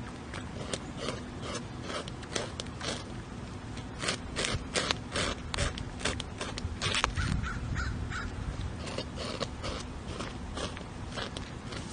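A beaver gnawing into a tree trunk, its incisors scraping and chipping the wood in quick, irregular strokes, several a second. The strokes come thickest about four to seven seconds in.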